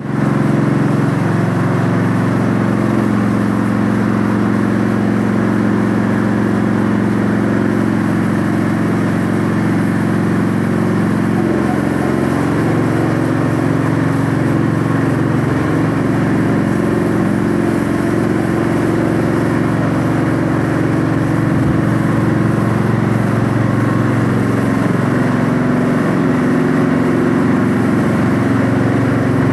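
Ride-on cubicle cleaner running steadily as it works along the cow cubicle beds: an even, unbroken motor drone with a scraping, rushing noise over it.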